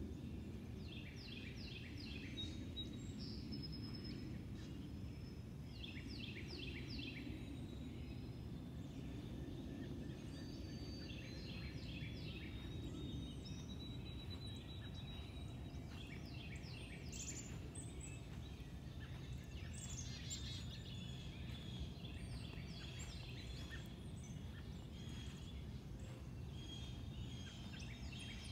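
Songbird singing: one bird repeats a short phrase of several quick, high notes about every five seconds, with other faint chirps between, over a steady low background rumble.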